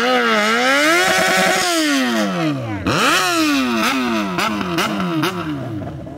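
Yamaha XJ6's inline-four engine revved up and down again and again during a burnout, the rear tyre spinning and smoking. About two seconds in the revs fall away in one long drop, then come quick rises and falls until it quietens near the end.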